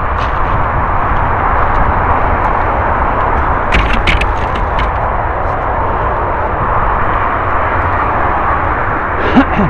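Mountain bike ridden along a dirt forest trail: a steady rushing noise of the tyres and air over the microphone, with a cluster of sharp clicks and rattles about four seconds in and a short squeak near the end.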